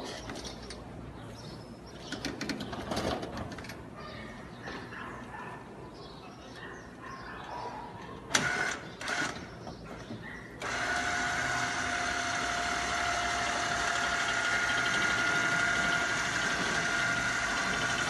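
Knocking and clattering as a refrigerator is handled on a stair-climbing hand truck, with two sharp bangs about eight seconds in. About ten and a half seconds in, the AMX S 150 stair climber's electric motor starts and runs steadily with an even whine.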